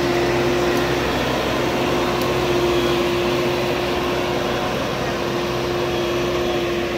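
JCB backhoe loader's diesel engine running steadily at close range as the machine rolls slowly past, with a steady whine held over the engine noise.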